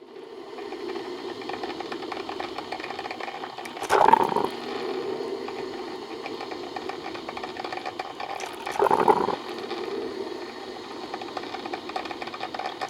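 Coffee machine pump buzzing steadily, with two short louder surges about four and nine seconds in.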